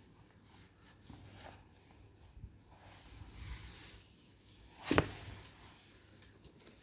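Faint handling noises, soft scrapes and rustles, then one sharp knock about five seconds in.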